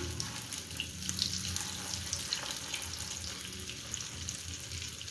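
Egg-coated potato-and-vegetable cutlets sizzling as they shallow-fry in hot oil in a pan: a steady hiss with small scattered pops and crackles.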